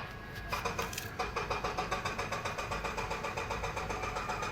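An engine running steadily with an even pulse, setting in about half a second in.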